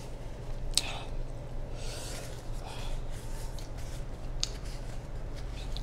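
Close-miked eating and handling noises: soft chewing and mouth clicks with hands rubbing together, including a sharp click about a second in and another near the end, over a steady low hum.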